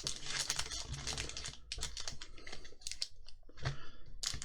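Foil booster-pack wrappers being handled and shuffled together, a continuous run of crinkling, crackling rustles with a short pause about three and a half seconds in.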